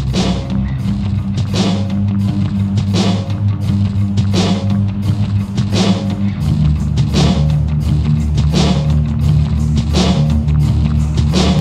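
Background rock music with guitar and drums and a steady beat; the bass line moves to a new note about six seconds in.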